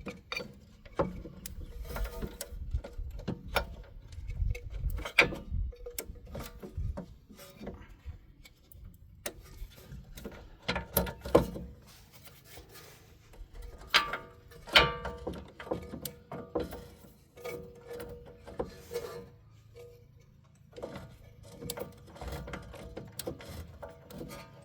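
Irregular metallic clicks, clinks and knocks of hand tools and a rear hub mounting bolt being worked into place, with a few louder knocks partway through.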